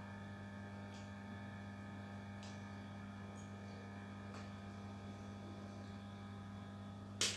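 Steady low electrical mains hum, with a few faint ticks and one sharper click near the end.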